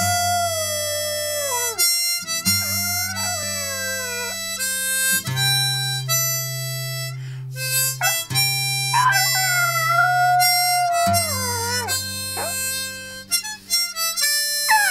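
Harmonica playing held chords over an acoustic guitar, with a chihuahua howling along in long wails that slide downward in pitch, at the start and again about nine seconds in.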